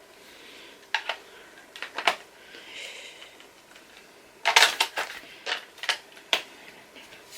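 Sharp hard-plastic clicks and clatter from a Playmobil dragon toy being handled, as a wing is pushed into its socket: a few single clicks, then a quick flurry of them past the middle. The wing clicks in but will not stay in.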